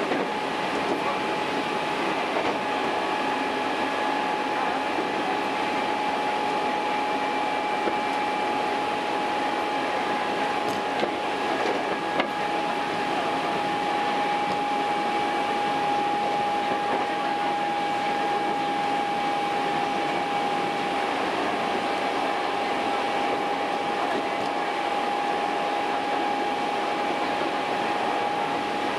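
Hankyu Kyo-train electric train running along the line, heard on board: a steady rolling noise with a steady high whine held throughout. Two small clicks come about 11 and 12 seconds in.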